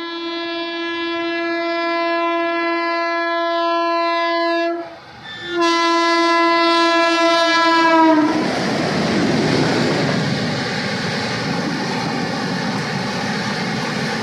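Indian Railways express locomotive sounding its horn in two long single-tone blasts with a brief break between them; the pitch of the second drops at its end as the locomotive passes. The horn gives way to the rush and rail clatter of the train running through the station at high speed without stopping.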